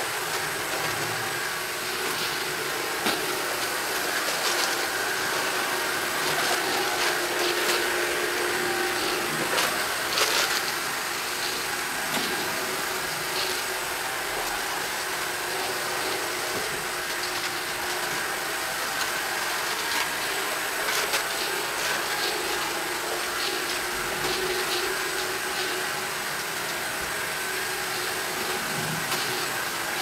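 ILIFE V7 robot vacuum running across a hard floor: a steady whir of its suction motor and brushes, with scattered short clicks as it picks up oats.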